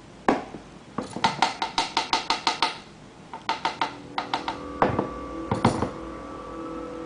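A spoon stirring sauce in a saucepan, clinking against the pan in quick, even strokes of about five a second, in two runs, followed by a few heavier knocks.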